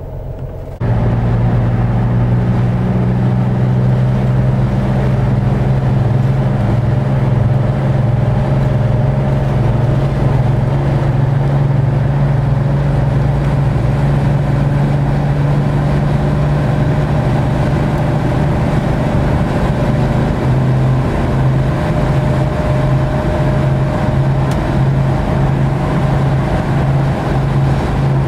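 The air-cooled flat-six of a 1965 Corvair 500 with dual exhaust, running steadily as the car drives. It comes in suddenly about a second in. In the last third the low drone takes on an even pulsing.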